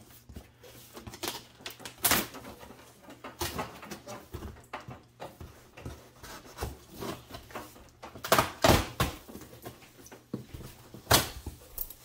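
Knife slitting packing tape along a cardboard box's seams in irregular scraping strokes, then cardboard flaps being pulled open with rustling and scraping, the loudest strokes a little past the middle and near the end.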